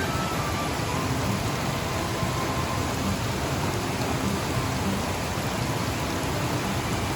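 Mountain stream water rushing steadily over rocks, an unbroken hiss of flowing water.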